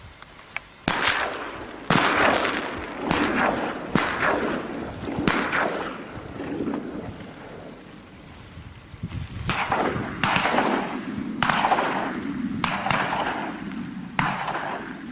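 Shotgun shots at waterfowl, about ten in all in two volleys several seconds apart, each rolling off in a long echo.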